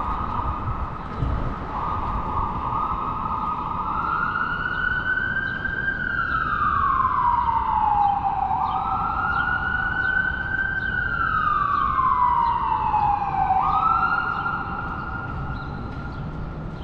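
Emergency vehicle siren wailing: a steady tone that steps up, then twice sweeps slowly down and snaps back up, stopping about fifteen seconds in, over street traffic.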